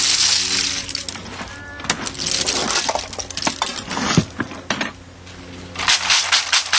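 Cooked sururu mussel shells clattering in a plastic crate. It opens with a rushing clatter, goes on with scattered clinks and knocks, and near the end turns to a fast rhythmic rattle, about five shakes a second, as the crate is shaken to separate the meat from the heat-opened shells.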